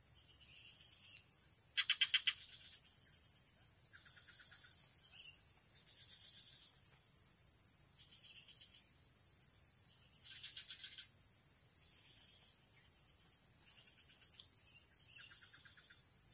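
Evening insect chorus: a steady high-pitched drone, broken every few seconds by short rapid trains of four or five pulsed calls, the loudest about two seconds in and again about ten seconds in.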